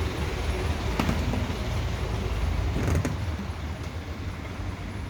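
Van running at low speed: steady engine and road rumble, with a couple of light knocks about a second in and again near three seconds.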